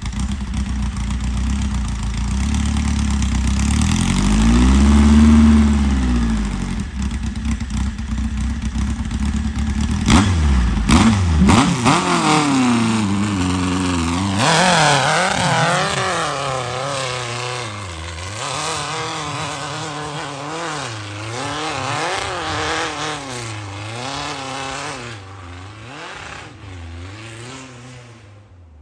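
Off-road race buggy's engine revving: one long swell in pitch early on, a couple of sharp knocks about ten seconds in, then the revs rising and falling quickly over and over as the throttle is worked. It fades away over the last few seconds.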